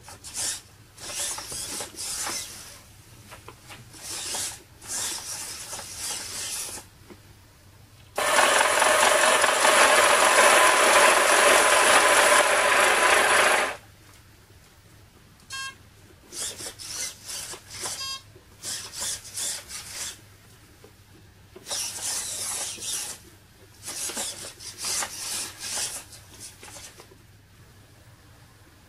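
Small electric motors and gears of a model boat's 360° Schottel-drive steering, driven from a radio transmitter, running in short bursts of a second or so. About eight seconds in comes a louder steady run lasting over five seconds.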